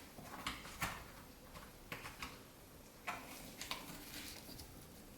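Small metal clicks and light scrapes, about half a dozen spaced irregularly, as a retaining clip is worked into place on a suspension fork's top cap.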